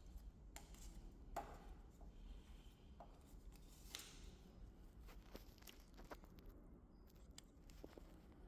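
Near silence: a low steady hum with a few faint scattered clicks and taps.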